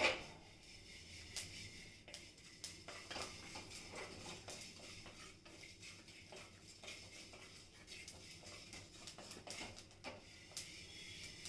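Fennel and fenugreek seeds being dry-roasted in a little oil in a small kadai and stirred with a spoon: faint, frequent light clicks and crackles with soft scrapes, with one louder clink right at the start.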